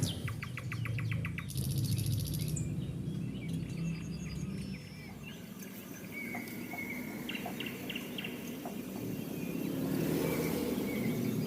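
Small birds chirping: a fast trill of quickly repeated notes at the start, then scattered short chirps and brief thin whistles, over a low steady background rumble.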